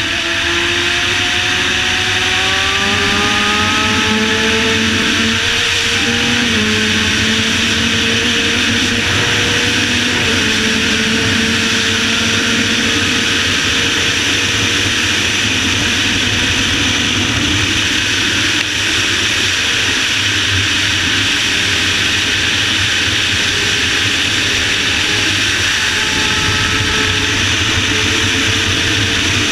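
Inline-four sport bike engine running hard at highway speed under heavy wind rush on the microphone. The engine note climbs over the first few seconds, then holds fairly steady with a couple of small shifts in pitch.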